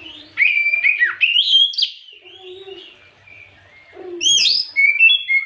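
Oriental magpie-robin (kacer) singing: two loud phrases of quick, sliding whistled notes, the first starting about half a second in and the second about four seconds in.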